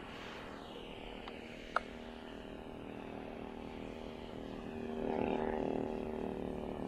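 Electric ducted-fan model jet flying past, its whine falling in pitch as it moves away, with a sharp click just under two seconds in. About five seconds in, a steadier pitched drone grows louder.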